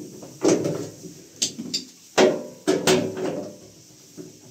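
Sharp metallic knocks and clanks of a tool and parts against the sheet-metal cabinet of a washing machine being taken apart, about six irregular strikes, each with a short ring.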